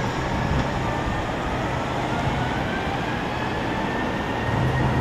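Airbus A321-231's IAE V2500 turbofan engines spooling up at the start of the takeoff roll: a steady jet engine noise with a whine rising slowly in pitch.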